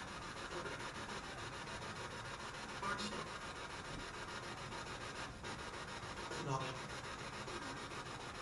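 Spirit box radio scanner sweeping through stations, giving a steady hiss of static with a fast chopping texture and a couple of brief louder fragments, around 3 seconds in and again around 6 seconds in.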